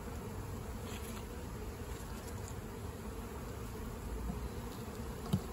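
A swarm of honeybees buzzing steadily around a nuc box as they are shaken out of a cooler, with a single short knock near the end.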